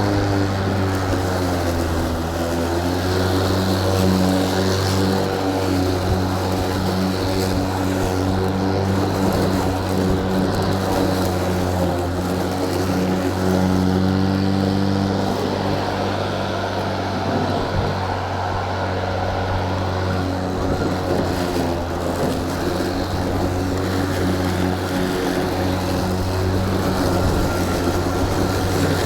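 EGO Power+ cordless electric lawn mower running, its spinning blade and motor giving a steady whirring hum that wavers slightly in pitch.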